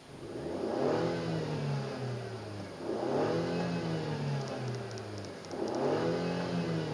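Mercedes-Benz W204 C180's M271 four-cylinder petrol engine revved three times in a row. Each blip rises quickly in pitch and then falls back toward idle.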